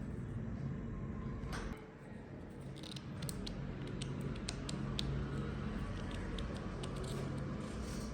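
Wire cutters snipping through the wires of a sensor cable: a string of short, sharp snips and clicks, roughly two a second from about three seconds in, over a steady low hum.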